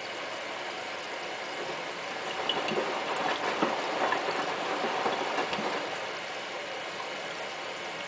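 Hotpoint Ultima WT960 front-loading washing machine tumbling its drum during the first rinse: for about four seconds from a couple of seconds in, the drum turns and the wet laundry swishes and knocks inside it, then the drum stops, leaving a steady hiss.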